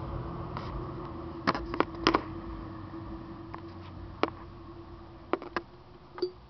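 Scattered light clicks and taps, about seven, over a steady hum, with the rumble of passing traffic fading out in the first second.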